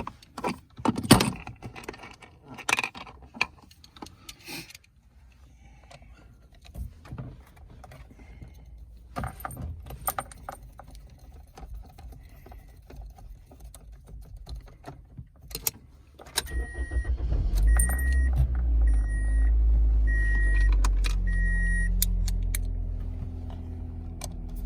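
Keys jangling and plastic trim and parts clicking on the steering column. About 16 seconds in, the 2003 Pontiac Vibe's four-cylinder engine starts on the new ignition lock cylinder and runs steadily, while a high warning chime beeps five times.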